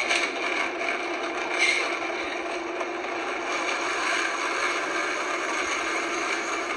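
Countertop blender running steadily, churning thick ice cream into a milkshake.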